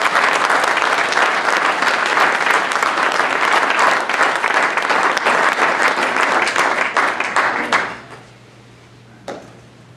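A small audience applauding, with dense clapping that dies away about eight seconds in.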